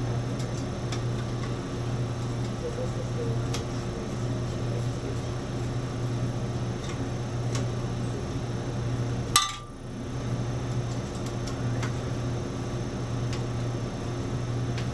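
Light metallic clicks and clinks of a ball-end hex driver working the screws that fasten a rheometer's upper heated plate, with one sharp click about nine seconds in, over a steady low hum.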